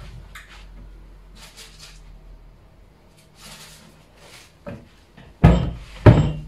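Kitchen wall cupboard being used: faint rustling and small clicks as things are handled inside it, then two loud knocks about three-quarters of a second apart near the end as the cupboard door is shut.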